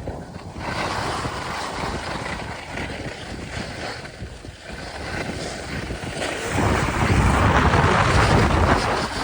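Wind rushing over the microphone with skis sliding and scraping on snow while skiing downhill, growing louder for a few seconds about two-thirds of the way through.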